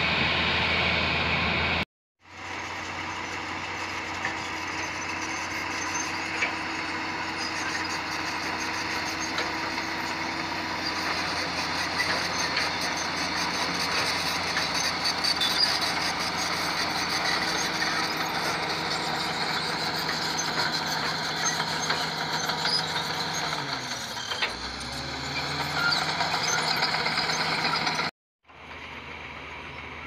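Crawler bulldozer's diesel engine running steadily while pushing soil. Its pitch dips briefly and climbs back near the end. The sound cuts off abruptly twice: about two seconds in and just before the end, where edits jump to other machinery.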